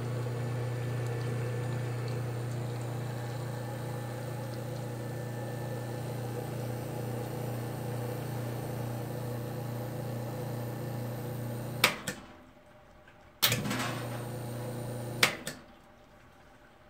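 Astoria two-group commercial espresso machine's pump running with a steady low hum for about twelve seconds, then cutting off with a sharp click. It clicks on again a second and a half later, runs for about two seconds, and clicks off.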